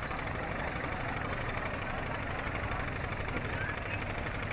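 Boat engine running steadily with a rapid, even knocking beat.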